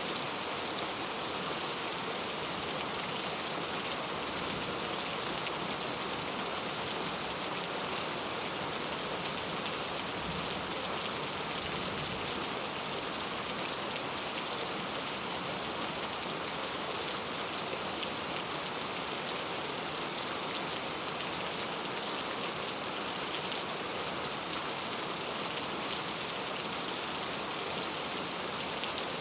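Heavy rain falling steadily, a dense even hiss of drops on a surface with fine pattering throughout.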